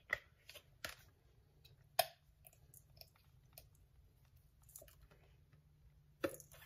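Plastic ketchup squeeze bottle being handled and squeezed over a steel bowl of meatloaf mix: scattered soft clicks and taps, with one sharper click about two seconds in and another near the end.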